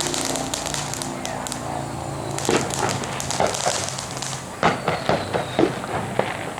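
Consumer fireworks going off around the neighbourhood: a scattered series of sharp bangs and pops, coming thickest and loudest in the second half.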